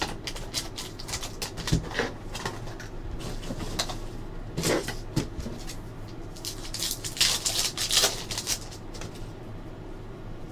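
Hands handling trading cards and foil card packs on a tabletop: a string of light clicks and rustles, with a longer crinkle of a foil pack wrapper from about seven to eight and a half seconds in.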